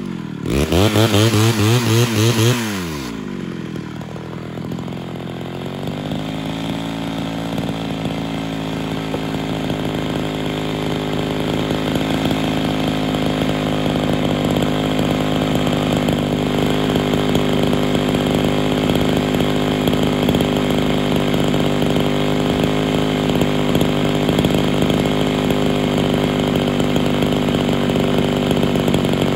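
Ported Homelite Super XL Auto two-stroke chainsaw cutting through a block of firewood, revving up and down at full throttle. About three seconds in it drops back and settles into a steady idle.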